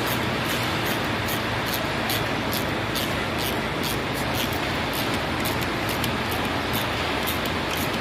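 A steady rumble of a running vehicle engine, with faint light ticks about two or three times a second.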